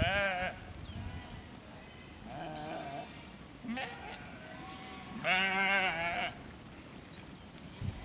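A flock of sheep bleating as they move: several quavering bleats, the loudest and longest at about five seconds in, lasting about a second.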